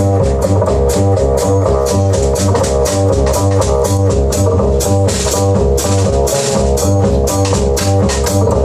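Live jazz quartet of trumpet, saxophone, double bass and drum kit playing: a repeating, driving low bass figure under pitched middle-range lines, with steady cymbal and drum strokes.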